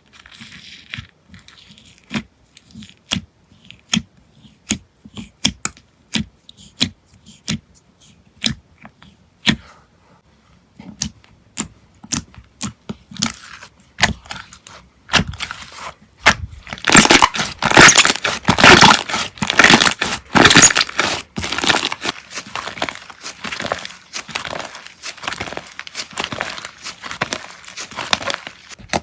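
Slime handled by hand, with sharp clicks and pops about once a second. A little past halfway it turns into a dense crackling that lasts to the end and is loudest when it begins.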